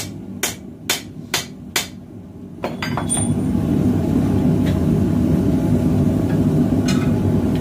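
Hand hammer striking hot 1080 carbon steel on an anvil, four blows about two a second, then a few light clanks and the steady roar of a propane forge, louder from about three seconds in.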